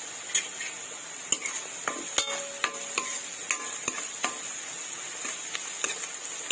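A metal spoon stirs and scrapes chopped onion and green beans frying in an aluminium kadhai, making about a dozen sharp clinks that ring briefly. Under them runs a steady frying sizzle.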